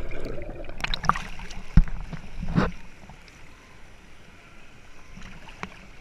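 Water splashing and churning around an action camera as it plunges through a water slide's runout pool, with a sharp thump about two seconds in. After about three seconds it settles to quieter, steady water sloshing.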